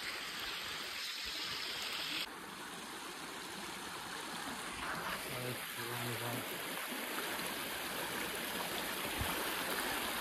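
Steady rushing of a stream's flowing water, a little quieter from about two seconds in.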